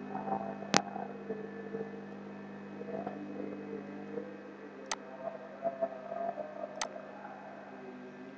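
Faint steady hum of the recording's background, broken by four short, sharp computer mouse clicks spread a couple of seconds apart.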